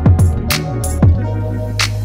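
Electronic background music with a steady deep bass line, booming kick drums that drop in pitch, and sharp snare-like hits.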